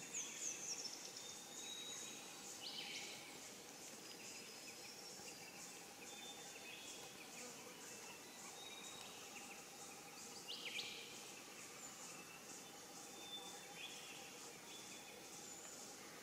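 Faint forest bird calls: scattered short high whistles, plus sharp sweeping calls that stand out about three seconds in and again about ten and a half seconds in. Beneath them runs a steady, rapid high-pitched pulsing.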